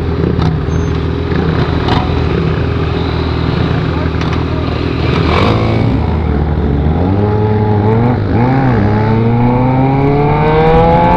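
Motorcycle engine, the Yamaha XJ6's 600 cc inline-four, running under way: steady at first, then the pitch dips briefly twice and climbs steadily as the bike accelerates.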